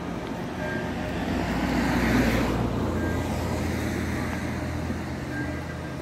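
A road vehicle passes, its tyre and engine noise swelling to a peak about two seconds in, then fading slowly with a low rumble. A church bell's ringing sounds faintly underneath.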